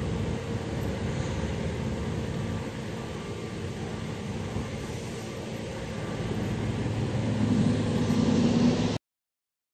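Low, steady engine rumble with a faint hum, growing louder near the end, then cutting off suddenly.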